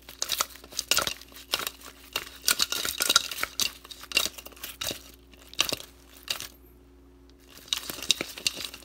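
Sauced grilled chicken wings being tossed in a mixing bowl: quick runs of clattering knocks and wet slaps against the bowl. They stop for a second or two about six seconds in, then start again.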